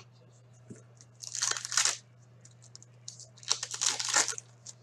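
Foil trading-card pack wrapper crinkling as it is torn open by hand, in two bursts of crackling about a second long each.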